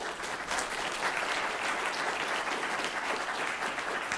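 Audience applauding at the end of a talk: steady clapping from many hands that starts just before and fades slightly near the end.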